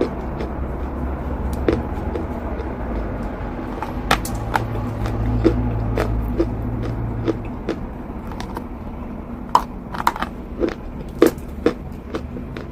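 Eating chalk close to the microphone: irregular sharp crunches and bites, coming thicker in the second half, over a steady low hum.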